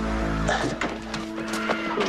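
Tense film score music with sustained low notes, cut through by several short sharp hits and a brief voice.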